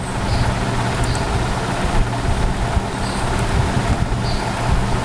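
Steady background noise with a low hum running under it, at about the loudness of the speech around it.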